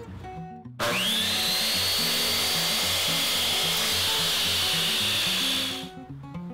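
Electric miter saw switched on about a second in, its motor whine rising quickly to full speed, then running steadily for about five seconds while cutting a piece of back band trim molding, and stopping. Acoustic guitar music plays underneath.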